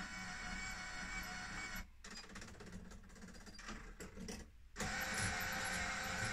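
Bright Tech Developments powered bus destination blind whirring mechanically as it scrolls through letters. The sound drops away and turns patchy about two seconds in, then comes back louder about five seconds in.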